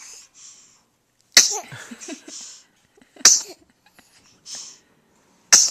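Three sharp sneezes, about two seconds apart, the first followed by a short breathy vocal tail.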